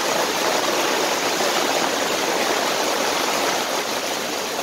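Heavy rain pouring down in a downpour, an even, loud hiss.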